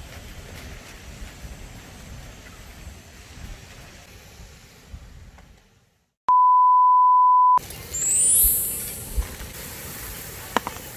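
A single loud, steady, pure-tone bleep of about a second and a quarter, starting and stopping abruptly out of dead silence, like an inserted censor bleep. It is followed straight away by a short rising swish sound effect.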